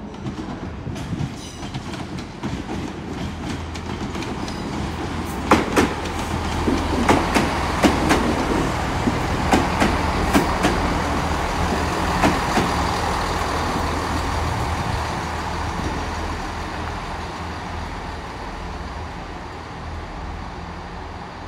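Class 166 Turbo diesel multiple unit running into the platform. Its diesel engines hum steadily, and its wheels click sharply over rail joints and points in the middle of the passage, where it is loudest; the sound then eases off as it slows.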